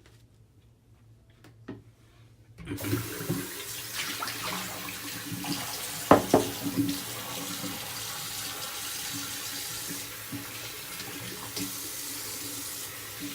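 Bathroom tap turned on about two and a half seconds in, water running steadily into the sink, with a sharp knock against it about six seconds in.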